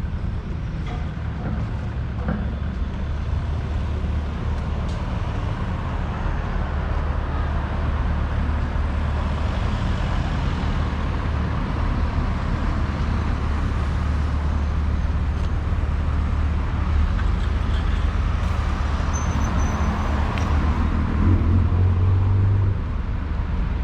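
City street traffic: cars driving past close by, their engine and tyre noise swelling and fading over a steady low rumble. The loudest pass comes near the end and then drops away suddenly.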